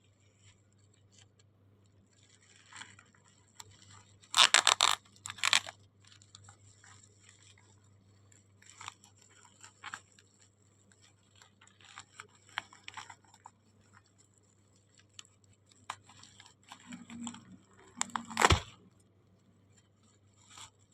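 Matcha powder packaging handled and opened by hand: irregular crinkling and rustling, with loud bursts about four to five seconds in and a sharp knock near the end.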